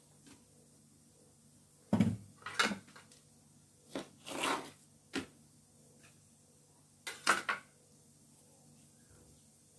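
Serrated bread knife cutting an onion on a tray: sharp knocks of knife and onion against the tray about two seconds in, a short rasping cut around four seconds, a click, then another cluster of knocks near seven seconds as things are set down.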